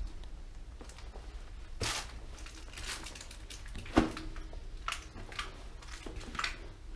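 Irregular footsteps crunching and scraping over debris and litter on a tunnel floor, with one louder thud about four seconds in.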